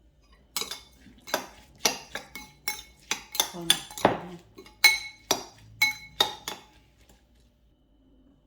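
A utensil clinking repeatedly against a bowl as the salad seasoning is stirred: about fifteen sharp, ringing knocks, roughly three a second. They stop about seven seconds in.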